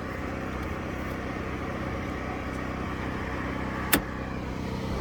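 A steady low mechanical hum, with one sharp click just before four seconds in.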